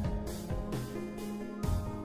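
Background music: soft instrumental music with held notes and a light low beat.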